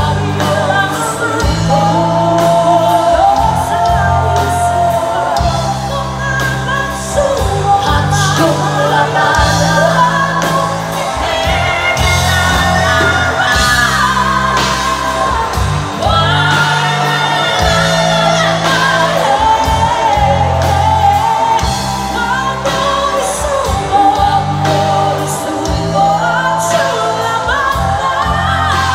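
Live pop band playing: women's voices singing into microphones over electric guitar, bass guitar and drums.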